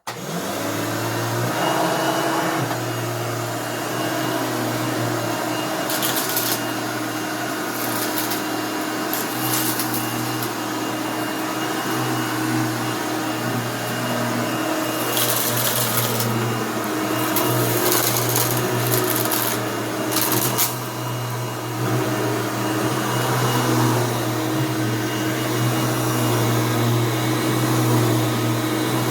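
Hoover Elite 600 upright vacuum cleaner, fitted with a new drive belt, switching on and running steadily with a constant motor hum. Several short spells of louder hiss come and go in the middle as debris from a mess test is drawn up.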